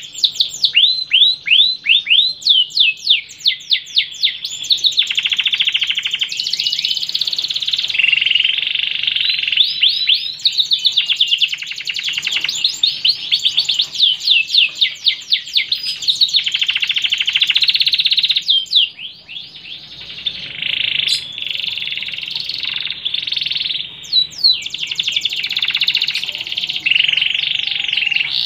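Domestic canary singing a long, loud song of rapid repeated falling trill notes alternating with sustained buzzy rolls, with a short pause about two-thirds of the way through.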